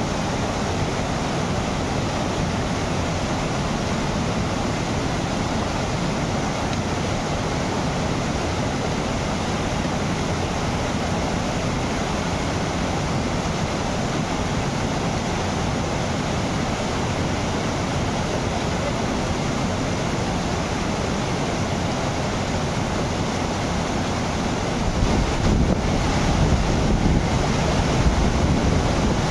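Steady, unbroken rush of falling water, as at a waterfall. From about 25 seconds in, a low wind rumble on the microphone joins it and the sound grows slightly louder.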